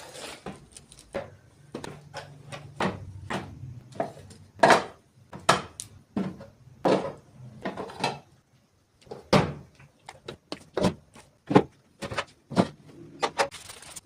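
Refrigerator drawers, shelves and containers being handled and set down: irregular knocks and clatters, some sharp, with a brief pause about halfway through.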